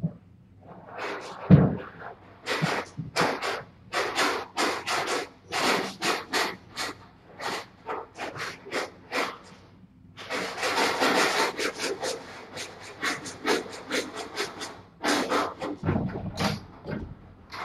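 Repeated rasping scrapes, about three a second, with a longer continuous rub about ten seconds in; a single loud thump about a second and a half in.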